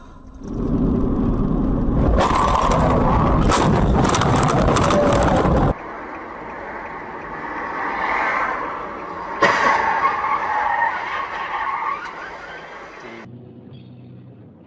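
Car noise heard from inside a moving car: a loud rough rushing and crackling for the first several seconds that stops abruptly, then quieter road noise with one sharp knock a little past halfway, dropping away abruptly again near the end.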